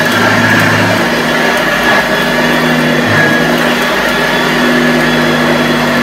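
1981 Hoover Junior U1104 upright vacuum cleaner running steadily on a rug, its motor humming and its beater bar beating the carpet as it is pushed back and forth.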